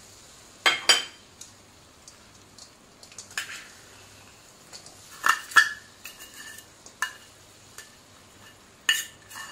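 Scattered metal clinks and scrapes of a slotted steel spatula against a steel bowl and an iron kadhai as chopped jaggery is scraped into the pan, the loudest pair about five and a half seconds in.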